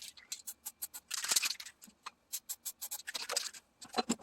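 Hand-work handling sounds: scattered clicks and taps, with two short scraping bursts about a second in and again about three seconds in.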